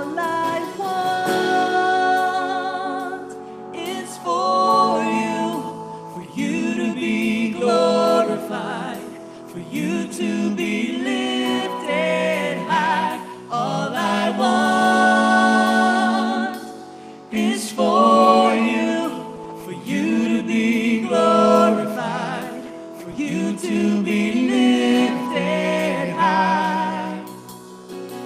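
A woman singing a slow worship song into a microphone over live band accompaniment, in sung phrases of a few seconds each with short breaths between them.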